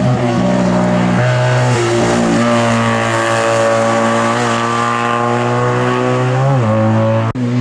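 Race car engine running hard at high revs, the pitch climbing slowly and then dropping sharply several times as the revs fall between pulls. The sound cuts out abruptly for an instant near the end.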